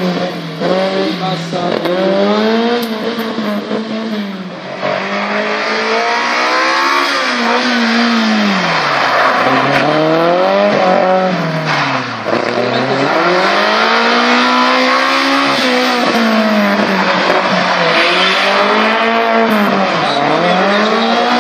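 Tuned Autobianchi A112's small inline-four engine being revved hard and let off again and again, its pitch climbing and dropping every couple of seconds as the car accelerates and brakes between cones on a gymkhana course.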